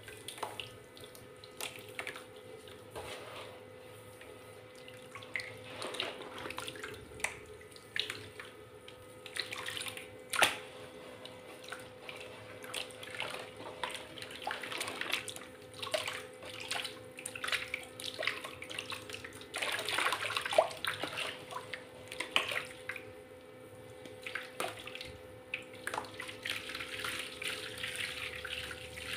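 Hands squeezing and crumbling lumps of soft mud in a plastic tub of water: irregular splashing, sloshing and dripping, with a sharp louder splash about ten seconds in and a busier stretch around twenty seconds.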